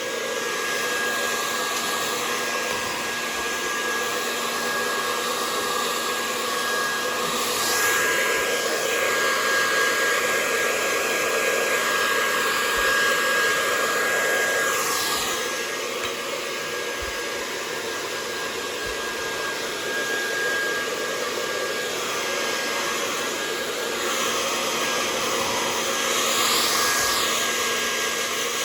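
Hair dryer running continuously: a steady rushing blow with a thin whine in it. The rush swells and sweeps in pitch three times.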